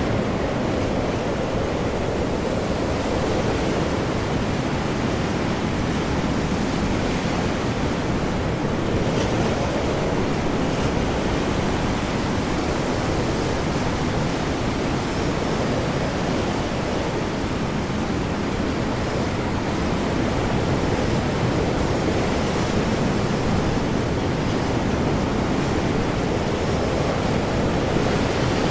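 Stormy ocean with high winds and heavy waves: a dense, steady wash of noise, heaviest in the deep range, swelling and easing slowly.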